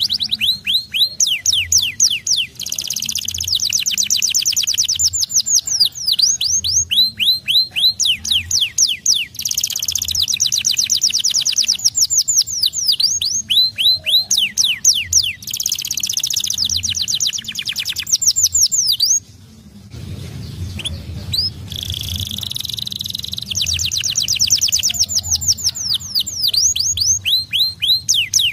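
Domestic canary singing long rolls of rapid, repeated downward-sweeping high notes, the rolls changing speed and pitch from one tour to the next, with a short pause about two-thirds of the way through.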